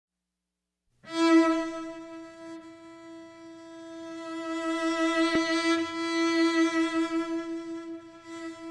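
Solo cello playing one long bowed note that comes in strongly about a second in, eases off, then swells again before easing near the end.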